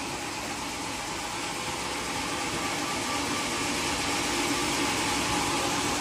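Steady mechanical drone of a running engine or machine with a hiss over it, slowly growing louder.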